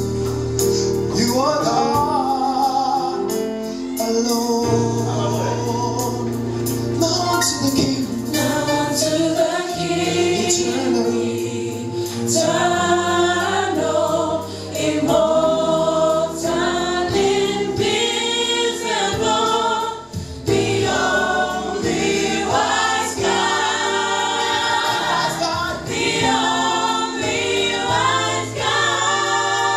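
Gospel worship music: a choir and lead singer singing over a band, with sustained held notes and a steady bass line.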